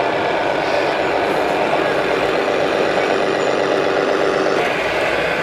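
Radio-controlled scale trucks driving slowly in a convoy, giving a steady truck-engine sound from their onboard sound units.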